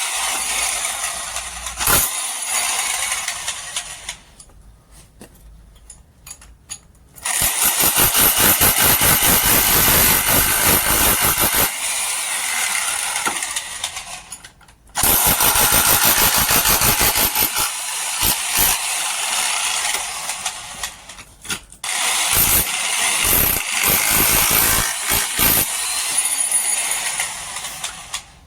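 Electric demolition hammer hammering in three bursts of several seconds each, with quieter gaps between them.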